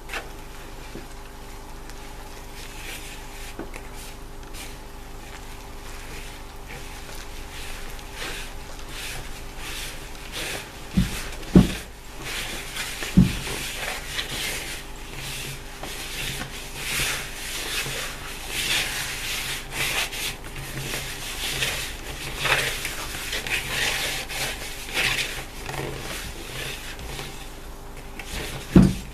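Hand mixing flour, water and oil into pizza dough in a wooden bowl: fingers rubbing and scraping the dough against the bowl, getting louder and busier over the second half. A few knocks against the bowl come near the middle, over a steady low hum.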